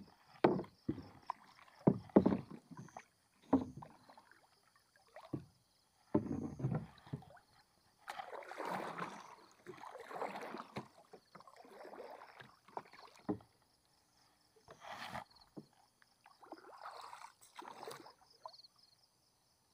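Water splashing and knocks around a small boat on a river as a gill net is hauled in by hand. Sharp irregular knocks come first, then several longer splashing, sloshing sounds.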